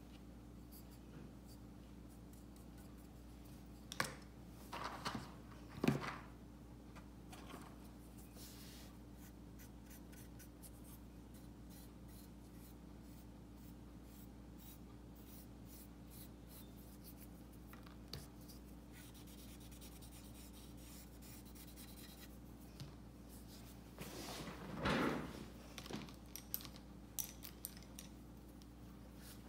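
Faint scratching, tapping and rubbing of a paintbrush and cotton bud working oil paint on a porcelain tile, with brief louder clatters of handling around four to six seconds in and again around twenty-five seconds. A steady low hum runs underneath.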